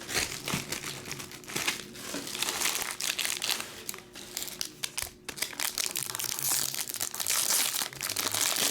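Foil wrappers of baseball card packs crinkling and rustling as packs are handled and torn open, a dense irregular crackle.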